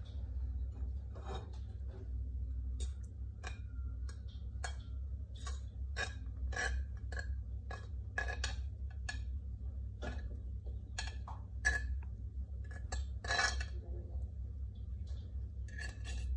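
A metal fork tapping, clinking and scraping against ceramic dishes in a string of short, irregular strikes, some with a brief ring, over a steady low hum.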